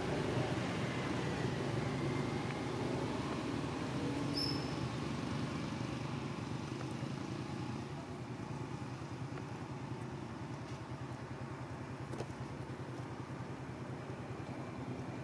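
Steady low background rumble of outdoor ambience, like distant traffic, easing slightly about halfway through, with a brief faint high chirp about four seconds in.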